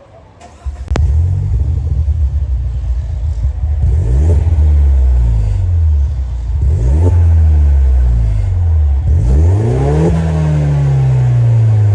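Stage-2 tuned Peugeot 208 GT's 1.6 turbocharged THP engine accelerating hard. Its pitch climbs in repeated surges about four, seven and ten seconds in. There is a short quiet moment with a click at the very start.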